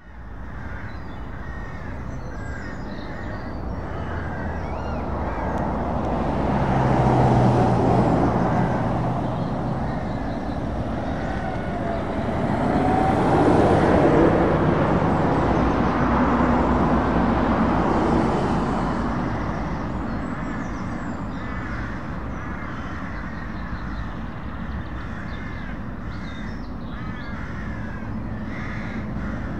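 Cars and lorries driving past on a rural road, their engine and tyre noise swelling and fading as each goes by, loudest about seven and thirteen seconds in. Birds call in the background.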